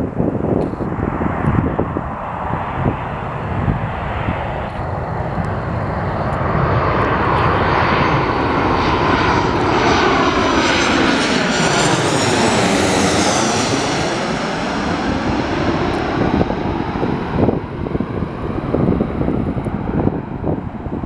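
Jet engines of a twin-engine airliner on low final approach, growing louder as it comes in and passing overhead with a whooshing sweep that falls and then rises again, loudest in the middle, then receding.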